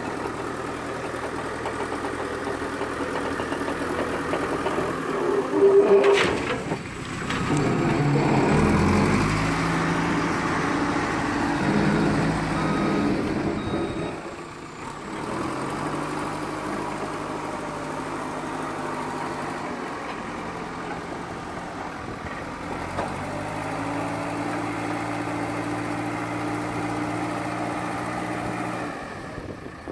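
JCB 3CX backhoe loader's diesel engine running, with a loud crash about six seconds in as a bucketful of soil is tipped into the steel dump truck bed. The engine then works harder for several seconds before settling back to a steady drone.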